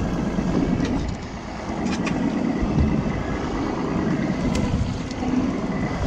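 Wind buffeting the microphone on a small boat on choppy water: an uneven low rumble, with a few faint clicks.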